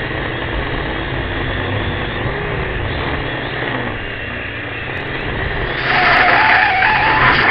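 Small radio-controlled drone's electric motors and propellers buzzing close up, a steady rushing whir with faint wavering pitch. It grows louder and brighter about six seconds in.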